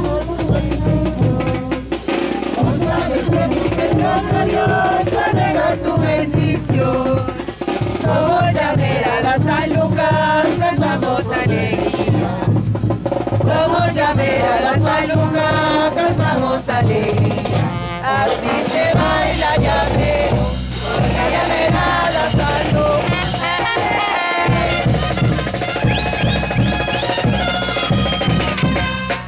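Llamerada dance music played live: drums keep a steady beat under a melody.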